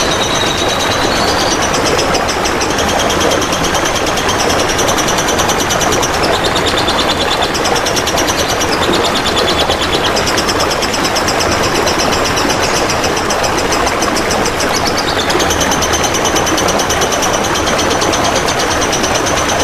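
A fast, buzzy high songbird trill played as masteran song, stepping between a higher and a lower pitch in phrases of a few seconds, over steady trickling water.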